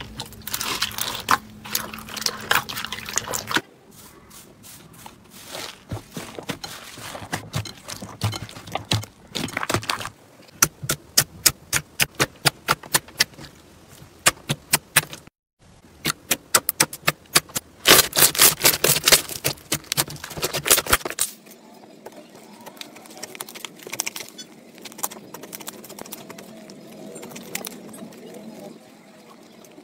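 Hands squeezing and kneading slime. Foam-bead slime crackles for the first few seconds, then come long runs of quick sticky clicks and pops as glossy slime is pressed and stretched. From about two-thirds through it turns to softer squishing of a thick slime.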